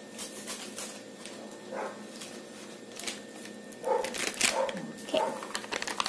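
A few short dog-like barks: one about two seconds in and several more between four and five seconds in. From about four seconds in, sharp crinkling of the plastic agar-agar sachet being handled and opened.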